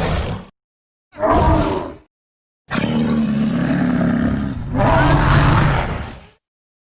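Designed monster roar sound effects for the fictional creature Spinodra: a call cuts off about half a second in, a short roar follows around a second and a half in, then a long roar of about three and a half seconds that swells twice. There is dead silence between the calls.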